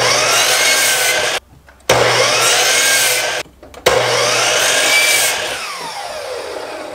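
Ridgid chop saw (miter saw) cutting 1.5-inch square wood stock, three runs of the motor's high whine and the blade cutting. The first two stop abruptly; the third ends with the blade spinning down in a falling whine.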